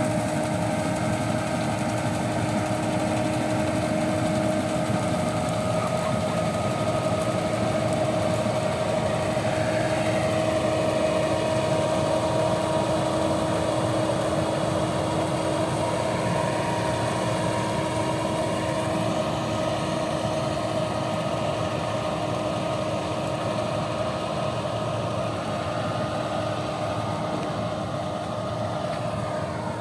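An engine running steadily with a constant, even hum.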